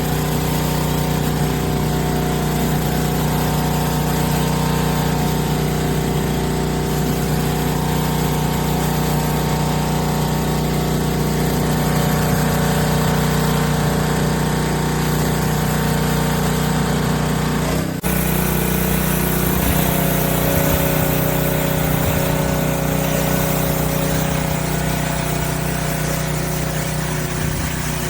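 Small engine of a pressure washer running steadily, with a hiss over it, as the surface cleaner is worked. About two-thirds of the way through the sound changes abruptly and the engine note shifts.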